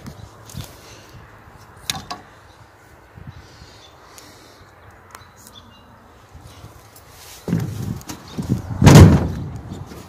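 Knocks and clunks as an old riding lawn mower is handled and searched for a switch: a single click about two seconds in, a quiet stretch, then several knocks ending in a loud bang about nine seconds in.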